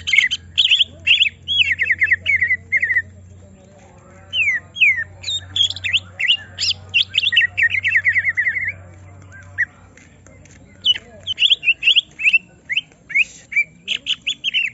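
Cucak ijo (greater green leafbird) singing in agitated, aggressive mood after being provoked. It gives three bouts of fast runs of sharp, falling notes, separated by short pauses. A faint steady low hum lies under the song until near the end.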